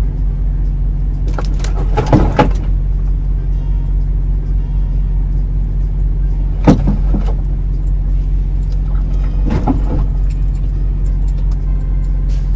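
Semi truck's diesel engine running steadily at low speed, heard from inside the cab while reversing, with three brief sharp sounds about two, seven and ten seconds in.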